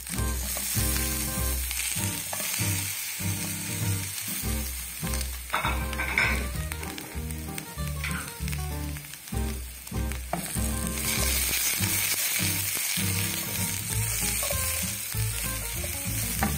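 Carrot sticks, broccoli and green bell pepper sautéing in oil in a nonstick frying pan: a steady sizzle, with a spatula stirring the vegetables.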